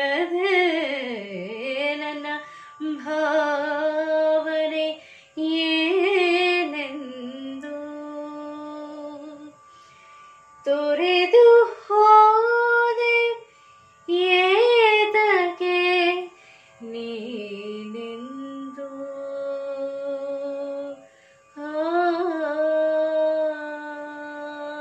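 A woman singing a Kannada song solo in long melodic phrases, with wide pitch glides and ornaments and short breaks between phrases, ending on a long held note.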